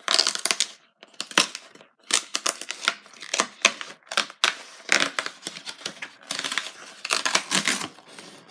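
Thin cardboard of a craft-kit box being torn open along its perforated flap, a run of short rasping rips and rustles with brief pauses between them.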